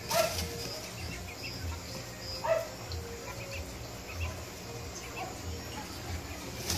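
Young quails peeping softly, short high calls repeating every half second or so, with two louder brief sounds just after the start and about two and a half seconds in. A low pulsing hum runs underneath.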